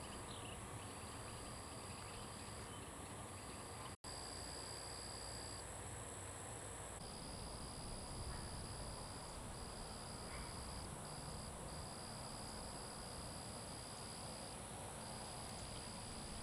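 Insects singing outdoors: a steady high trill comes in phrases of one to three seconds with short gaps, over a constant, even higher insect hiss. The sound cuts out for an instant about four seconds in.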